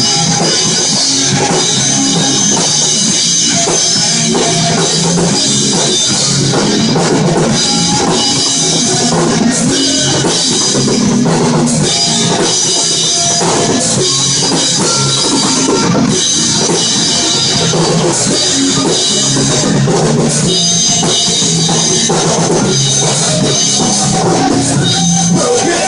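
Loud rock music driven by a drum kit, playing continuously.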